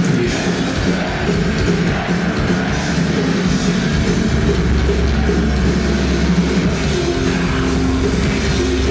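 Heavy metal band playing live at full volume: distorted electric guitar through Marshall stacks, bass and drum kit, heard from the crowd. A low bass note comes in and holds from about four seconds in.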